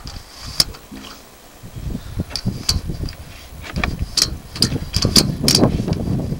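Sewer inspection camera's push cable being worked back and forth in a clogged drain line: irregular clicks and knocks over a low rumbling, rushing noise that builds about two seconds in.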